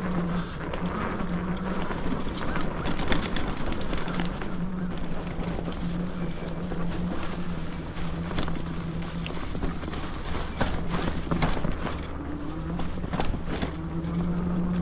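E-bike's Bafang G62 hub motor whining steadily under the Flipsky VESC controller, its pitch shifting a little with speed, over tyre and wind noise from riding a trail. Scattered sharp clicks and crackles come from the tyres running over the leaf-strewn path.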